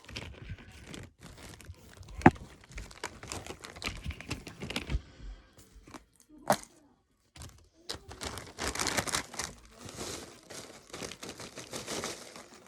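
Snack packaging crinkling and rustling as cheese crackers are handled and tipped into another container. Two sharp clicks stand out, the loudest about two seconds in and another near the middle.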